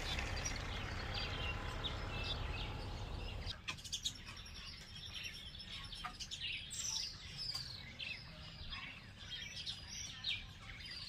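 Wild birds chirping and calling, many short chirps with a few falling whistles. A low steady rumble stops abruptly about three and a half seconds in, and a few brief knocks sound over the birdsong.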